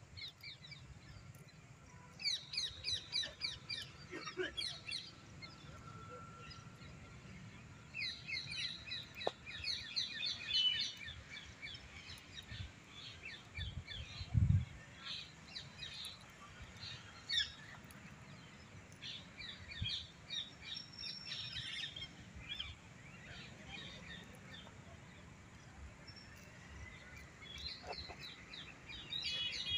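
Small birds chirping in quick runs of repeated high chirps, coming in several bouts, with a single dull low thump about halfway through.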